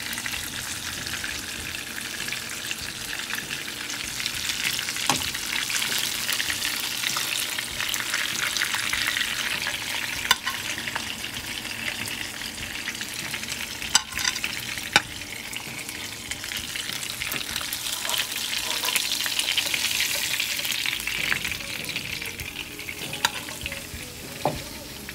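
Striped bass fillets pan-frying, a steady sizzle that swells and eases, with a few sharp clicks scattered through it.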